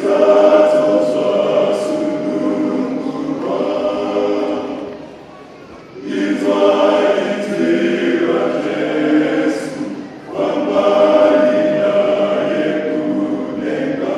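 A choir of many voices singing together in three sustained phrases, with brief dips between them about five and ten seconds in.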